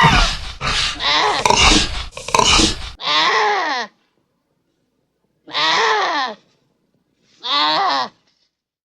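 Pachycephalosaurus creature sound effects: a quick string of overlapping roars and growls with abrupt cuts, then three separate calls, each falling in pitch, about two seconds apart.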